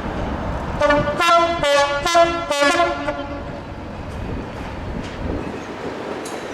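Diesel locomotive's two-tone horn sounding a quick series of about five short blasts, then the train's steady running rumble.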